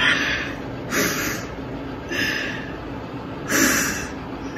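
A woman's loud breaths through the nose and mouth: four noisy huffs or sniffs, about a second apart, with no voice in them.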